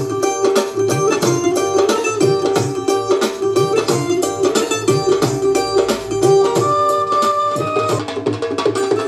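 Music with a steady beat and plucked-string melody.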